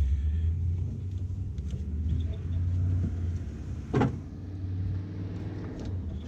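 Steady low rumble, with one sharp click about four seconds in.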